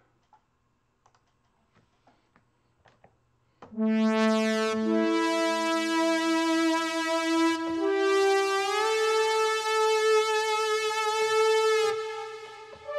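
Syntronik's Vangelina software synthesizer, modelled on the Yamaha CS-80, playing a triumphant synth-brass preset of four detuned analog-style oscillators with a pitch-envelope scoop. After a few seconds of near silence with faint clicks, slow held chords start about four seconds in, their notes changing every second or two.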